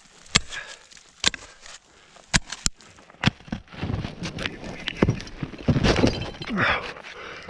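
Ice axes struck into snow several times in the first three seconds or so, each a sharp strike. After that comes a longer spell of crunching and scraping as crampon-shod boots are kicked into the snow.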